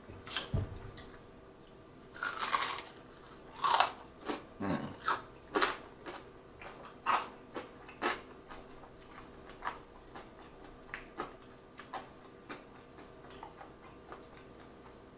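Close-up biting and chewing of crunchy fried chicken coated in sweet chili sauce: loud crisp crunches in the first several seconds, then fainter chewing crunches about a second apart.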